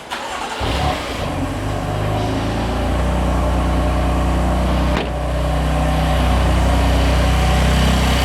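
BMW F80 M3's twin-turbo inline-six starts about half a second in and settles into a steady idle. It has a new rocker cover with its oil separator, and the high-pitched whistle from the old separator's torn diaphragm is absent.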